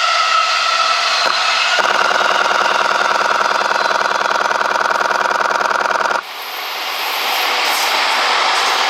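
A locomotive-hauled train of unpowered E217-series cars rushes past with steady rolling wheel noise. From about two seconds in, a loud, rapidly pulsing buzz joins for about four seconds and cuts off suddenly.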